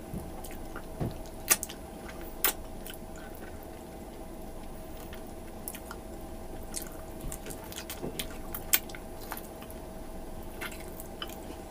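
Close-miked mukbang eating: chewing and sharp wet smacks and clicks of the mouth on sticky, tendon-rich beef stew (balbakwa) eaten by hand. A faint steady hum runs underneath.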